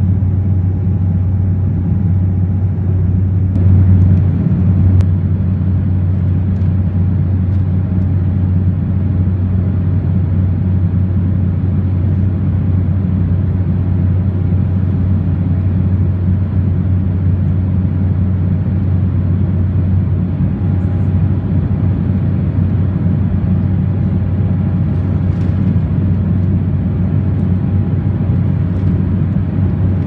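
Steady drone of a jet airliner in flight, heard inside the cabin: a deep engine and airflow rumble with a faint steady whine over it.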